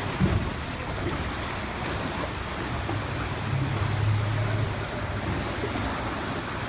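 Small open motorboat under way: a low steady engine hum, a little louder about three and a half seconds in, under the wash of water and wind noise on the microphone.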